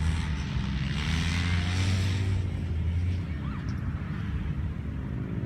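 Off-road vehicle's engine running steadily as it drives, a low hum, with a rushing noise over it for the first couple of seconds that eases off about halfway through.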